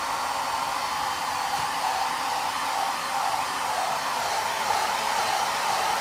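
Handheld hair dryer running steadily: a constant rush of blown air with a mid-pitched hum.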